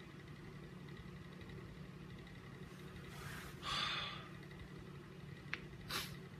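A person's breathy exhale, like a sigh, close to the microphone about halfway through, over a steady low room hum. A short tick and another brief breathy noise follow near the end.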